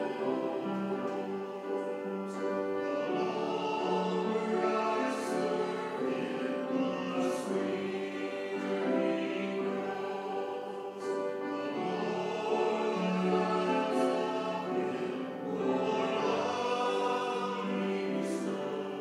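Church choir singing in parts, with long held notes.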